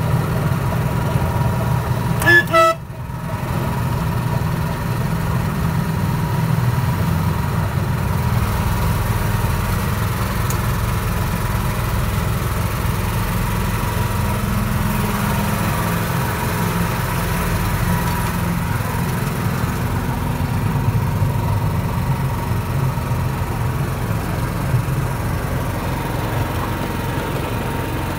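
Petrol-hydraulic 2-6-2 miniature railway locomotive running steadily along the track, heard from its cab, with a short toot of its horn about two seconds in.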